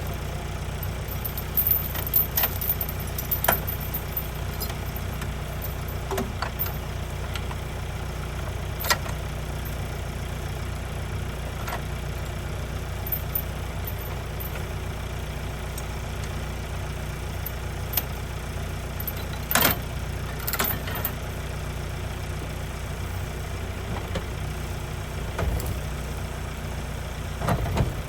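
Diesel excavator engine running steadily, with scattered sharp clanks and knocks from the machine at work.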